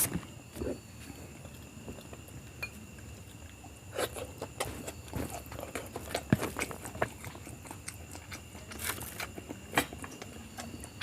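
Close-up chewing and wet mouth smacks of someone eating biryani: irregular clicks and squelches, coming thicker from about four seconds in.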